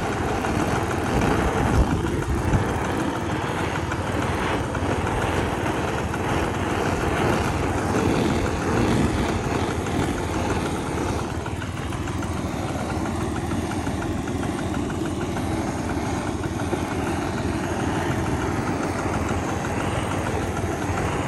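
Handheld butane kitchen torch on a gas canister, burning with a steady, continuous hiss.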